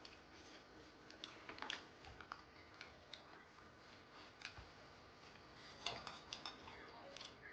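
Faint, scattered small clicks and taps of eating noodles, such as utensils touching a bowl and mouth sounds, in a quiet room, with a small cluster of clicks about six seconds in.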